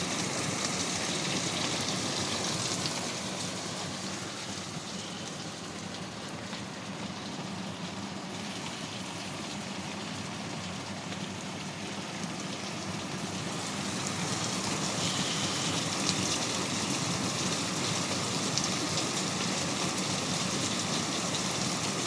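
Steady rain falling, an even hiss of drops. It eases slightly partway through and grows heavier again later on.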